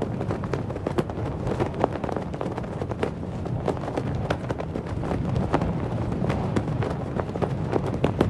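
Cloth flag flapping in the wind: rapid, irregular snaps and cracks of the fabric over a steady low wind rumble.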